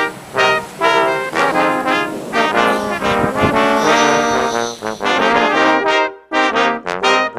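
Background music: a brass-band arrangement with trombones and trumpets playing a lively run of notes.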